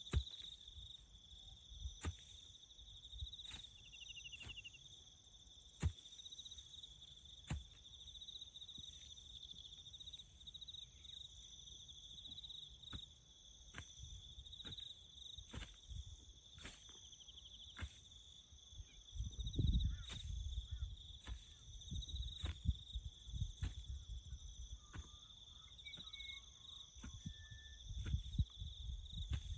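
Crickets chirping in a steady high trill, with scattered sharp clicks and knocks and a few low thumps, louder about two-thirds of the way through and near the end.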